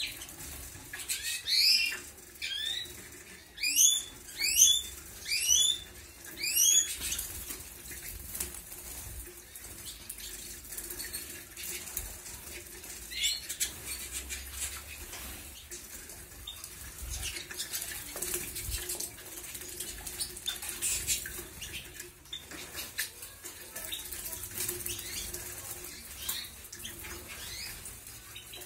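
Canaries bathing in a shallow dish of water: wings flutter and water splashes. A run of loud, sharp, rising chirps sounds during the first seven seconds.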